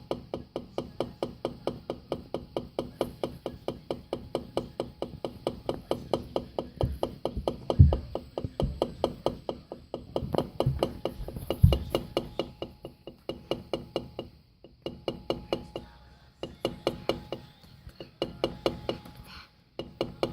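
Kenmore Elite LG MC57LAUM microwave oven knocking rapidly as it runs, about four knocks a second, with a few heavier thumps around the middle. Near the end the knocking becomes more irregular, with short gaps.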